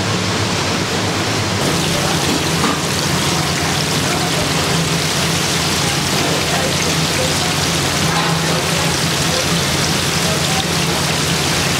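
Food frying in a commercial deep fryer, the oil bubbling and sizzling steadily.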